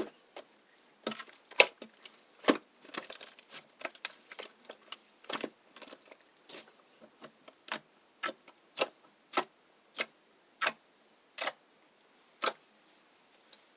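Slime being pressed and squeezed by hand, giving sharp clicking pops. The clicks come thick and irregular at first, then settle into single pops about every half second and trail off near the end.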